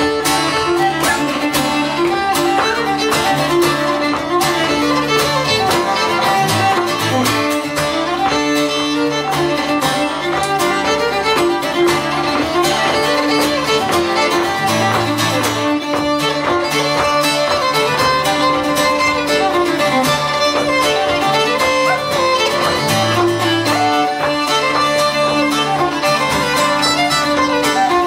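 Instrumental folk music: a fiddle playing a tune over rhythmic acoustic guitar accompaniment, with no singing.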